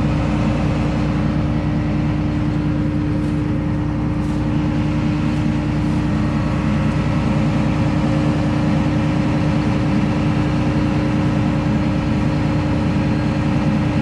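Combine harvester's diesel engine running at a steady idle, a constant hum with a strong steady tone.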